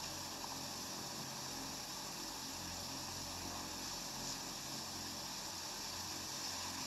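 Steady, faint background hiss with a light low hum: open-microphone noise while the recitation is paused.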